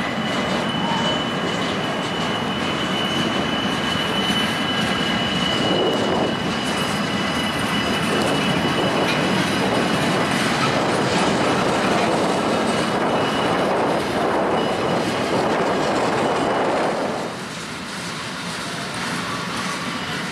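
Freight train rolling past close by: steel wheels of empty flatcars clattering steadily over the rail, with a thin, steady high squeal through most of it. The noise drops noticeably near the end.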